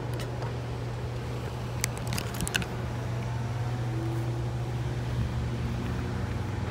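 Steady low engine drone, with a few short sharp clicks about two seconds in.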